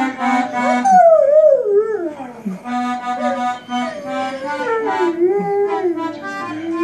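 A Rottweiler howling along to polka music. There are two long wavering howls that slide down in pitch, one starting about a second in and another about four seconds in, over the steady notes of the music.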